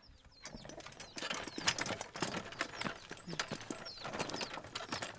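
A wheelchair pushed along a dirt track, with footsteps: a stream of irregular clicks and knocks from the wheels and frame rattling over the rough ground and from steps on the dirt.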